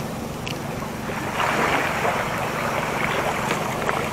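Wind on the microphone and water washing along the shore, over a faint steady low hum. A hiss grows louder about a second in.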